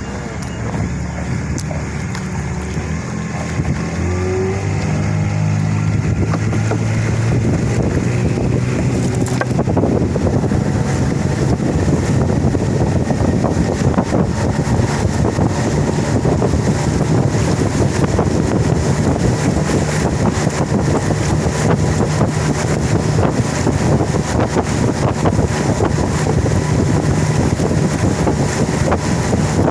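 A small boat's motor running under way. It picks up speed about four seconds in, then runs steadily over rushing water and wind noise.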